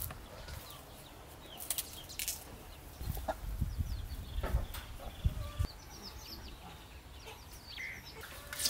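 Hen clucking now and then in short, high calls, with a few soft knocks as bunches of bananas are handled.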